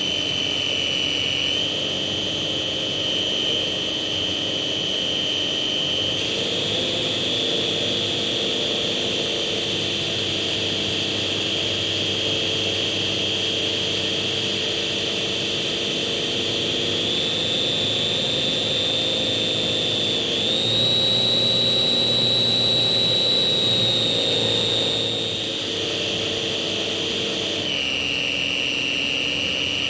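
Electric motor and propeller of a Slow Stick model airplane in flight, a steady high whine that steps up and down in pitch as the throttle is changed several times. It is highest and loudest for a few seconds about two-thirds of the way through.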